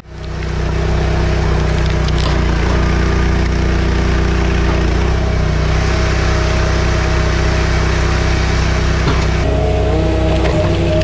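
An engine running loud and steady under load, its pitch shifting a few times.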